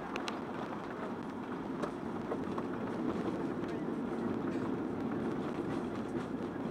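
Steady cabin noise inside a Boeing 737-900 rolling along the runway after landing: engine and wheel noise carried through the fuselage.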